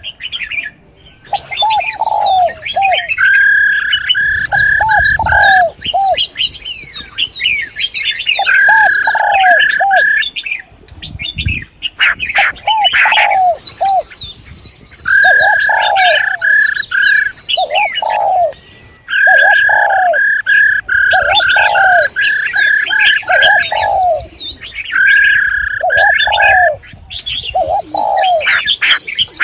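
Several female birds calling at once: a repeating series of short low notes, runs of level piping notes and fast high twittering, coming back in cycles every few seconds with short breaks. These female calls are played to stir male cage birds into singing.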